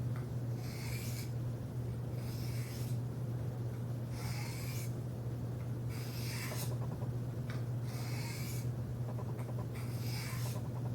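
Kershaw Salvo knife blade drawn across the fine side of a diamond sharpener in light alternating strokes, the burr-removing stage after a burr has been raised: six short rasping scrapes, about one every second and a half, over a steady low hum.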